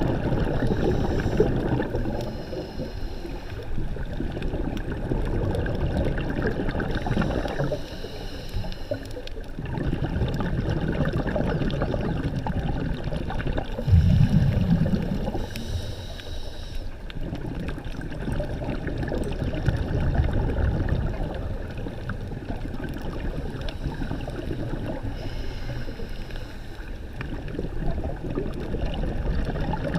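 Water sloshing and gurgling with a low, rough rumble that swells and ebbs every few seconds, with a louder surge about halfway through.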